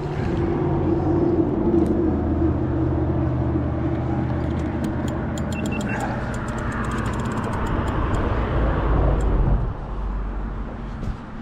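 Engine of a passing motor vehicle running steadily with a low hum, then dropping away about nine and a half seconds in. A run of light clicks comes near the middle.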